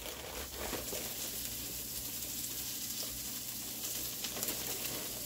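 Diced bacon and onion sizzling steadily in a sauté pan, a fine frying hiss with faint crackles.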